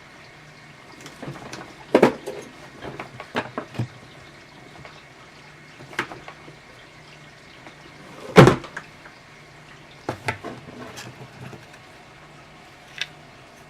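Hand tools being picked up and handled: scattered clicks and knocks at irregular intervals, the loudest a sharp knock about eight seconds in.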